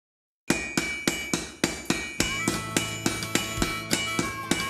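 Blacksmith's hammer striking hot iron on an anvil in fast, even blows, about four a second, each with a metallic ring. The hammering starts about half a second in.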